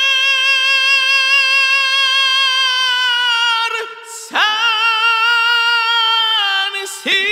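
A tenor voice singing unaccompanied: one long high note with vibrato, a quick breath about four seconds in, then a second long held note that sinks slightly in pitch toward the end.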